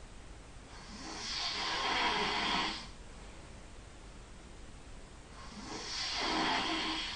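A sleeping person snoring: two long snores about four and a half seconds apart, each swelling over a second or two and then cutting off.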